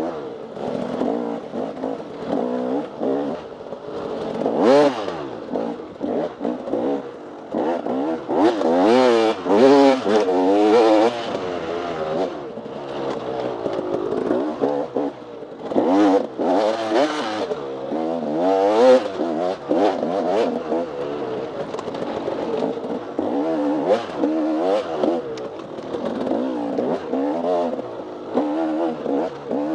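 Off-road dirt bike engine revving up and down over and over as the throttle is worked and gears are shifted, with short rising surges and drops in pitch, and some clattering.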